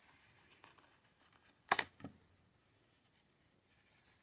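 Quiet handling of paper and tape on a desk, with one sharp click about two seconds in and a fainter one just after.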